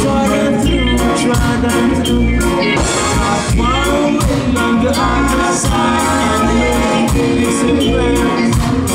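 Live reggae band playing: a man singing the lead vocal over a steady bass-and-drum groove with guitars.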